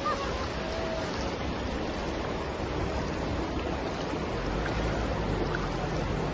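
Shallow river water rushing steadily over stones around a stationary SUV, with a low rumble joining about four seconds in.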